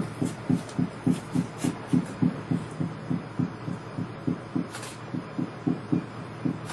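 Live electronic performance sound: a low pulse repeating about three and a half times a second, with a few brief high crackles over it.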